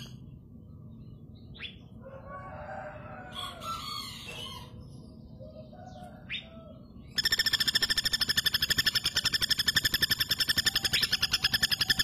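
Female common flameback woodpecker (pelatuk bawang) giving a loud, fast, even rattling call of many notes a second, starting about seven seconds in and running on. Before it there are only fainter, indistinct calls and two short rising notes.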